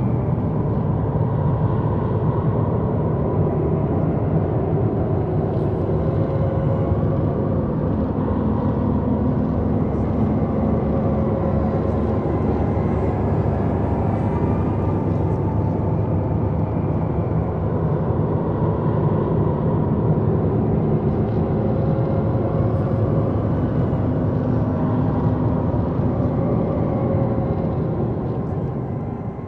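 Dark horror ambience: a steady, low rumbling drone with faint tones drifting in and out above it. It fades out near the end.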